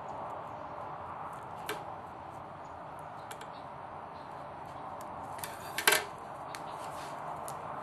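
Small clicks and a short, louder crinkling crackle near the end: fingers and fingernails picking at the paper backing of double-sided tape on wood, trying to get it to lift. A steady hum runs underneath.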